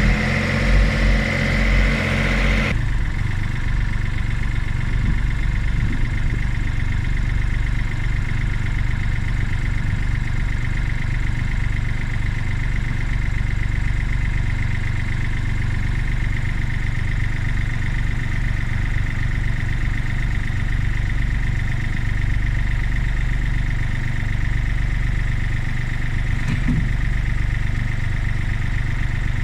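Diesel engine of a skid steer or compact excavator running steadily. The engine note changes abruptly about three seconds in, then holds steady.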